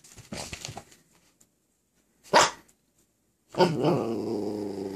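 Miniature Australian Shepherd puppy barking once, sharply, about two seconds in, then giving a long drawn-out growl of about a second and a half near the end. He is asking for help to jump up onto the bed. A brief scuffle of movement comes first.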